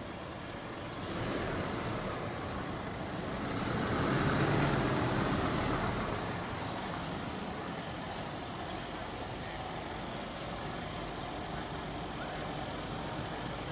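Diesel engine of a large army bomb-disposal truck moving slowly past, growing louder to a peak about four seconds in, then easing to a steady running sound as it pulls away.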